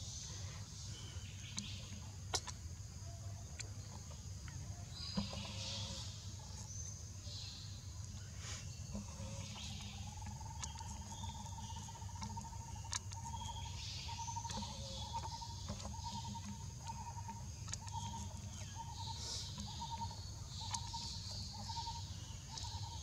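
Outdoor ambience: a steady high insect drone with scattered short bird chirps over a low rumble. From about ten seconds in, a repeated call pulses evenly about one and a half times a second.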